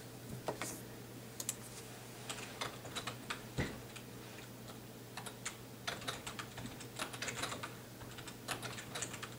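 Typing on a computer keyboard: faint, irregular key clicks in short runs with brief pauses between them.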